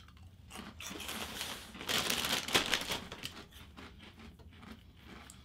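Crunchy Cheetos being bitten and chewed, a dry crackling crunch, with a louder burst of crackling about two seconds in as a plastic chip bag is handled and crinkled.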